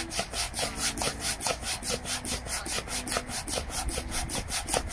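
Hand pump inflating an inflatable stand-up paddle board: an even, rapid run of air rushes, several a second, one with each pump stroke.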